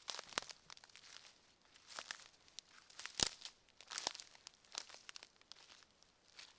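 Footsteps of a person walking on the forest floor, each step a dry crunch, about one a second, with a sharper crack about three seconds in.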